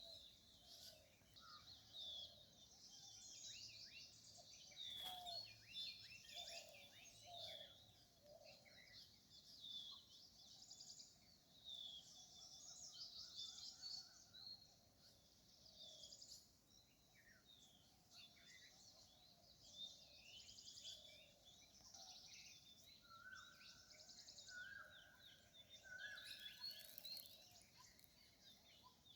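Faint forest bird chorus: many small birds chirping continuously in quick overlapping notes, with a few steady whistled notes from another bird in the last third.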